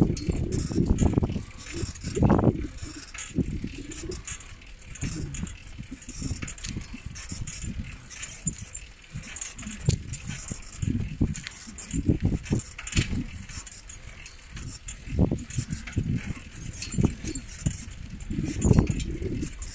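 Handheld phone microphone moving outdoors, picking up irregular low rumbling from wind and handling, with a few light rattling clicks and a faint steady high hiss.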